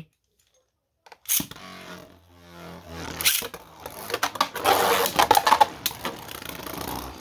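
Two Beyblade spinning tops, the 3D-printed Rotary and Wizard Fafner, launched into a stadium, starting suddenly about a second in. They spin with a rattling whir and clash repeatedly with sharp clacks and scrapes.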